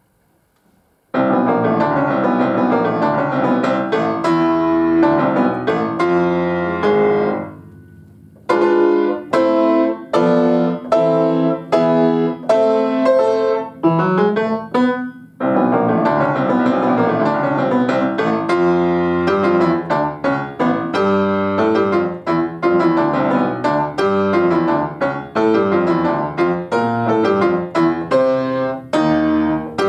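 Solo piano playing a lively children's piece, starting about a second in, with a brief pause around a quarter of the way through and a quick rising run near the middle before the playing resumes.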